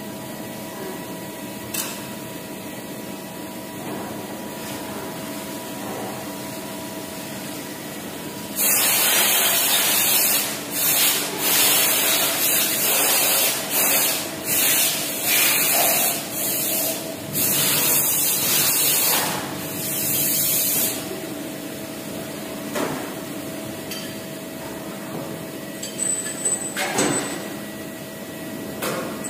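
Steady hum of a Jyoti vertical machining centre. From about a third of the way in, some twelve seconds of loud hissing in short bursts and pauses, a compressed-air gun blowing chips off the fixture inside the open machine. A brief clatter near the end as the enclosure's sliding door is handled.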